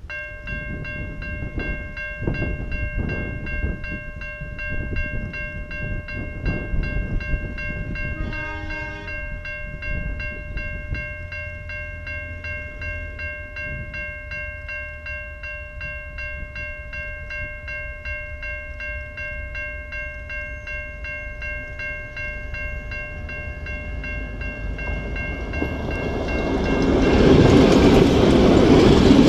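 A train approaching. A steady, pitched warning signal with several tones sounds for most of the time, with a short different tone about eight seconds in. The rumble of the train rises over the last few seconds and becomes the loudest sound.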